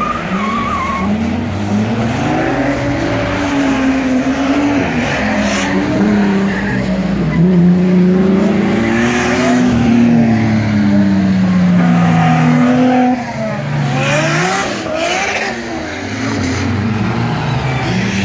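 Several car engines revving hard as cars drift on a wet track, their pitch sweeping up and down. The engines are loudest in the middle and ease off briefly just after that.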